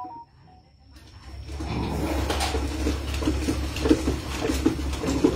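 Small dogs jostling and making repeated short, low grunting sounds, over a steady low rumble that starts about a second and a half in.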